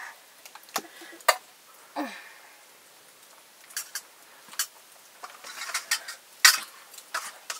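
Metal spoons clinking and scraping against a steel bowl and plate: a handful of short, sharp clicks spread irregularly through the few seconds.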